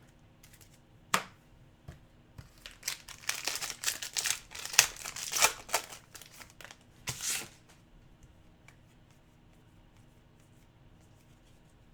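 Plastic trading-card pack wrapper being torn open and crinkled, a dense crackling for about five seconds in the middle, with a few sharp clicks of handling around it.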